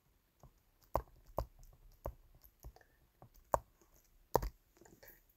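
Light, irregular clicks of a stylus tapping and writing on a tablet's glass screen, about eight taps spread over a few seconds, the sharpest about three and a half and four and a half seconds in.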